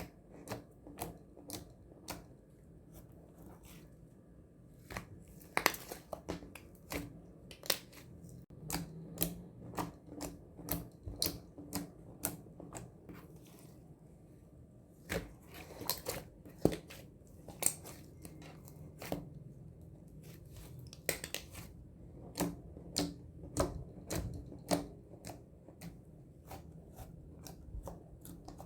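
Slime being squished and pressed by hand, making many irregular sticky clicks and pops, with a couple of short sparser stretches.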